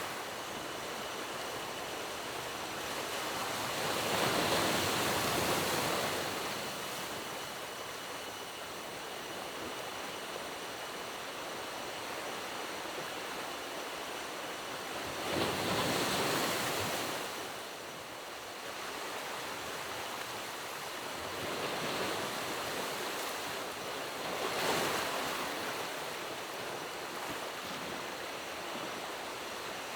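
Steady rush of water that swells louder and eases back four times: a long surge about four seconds in, another around sixteen seconds, and two smaller ones in the later part.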